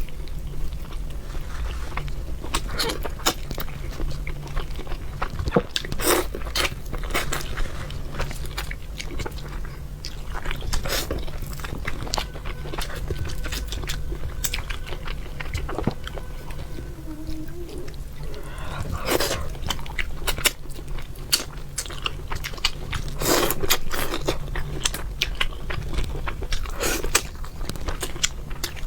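Close-miked chewing, biting and mouth sounds of a person eating red-braised fish by hand, with irregular crunchy bites, over a low steady hum.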